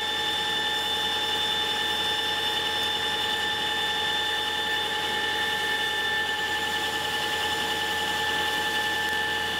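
Big lathe deep-hole drilling hard steel with a long carbide-tipped drill. The cut and the machine give a steady high whine over a constant hiss of through-drill coolant spraying from the hole.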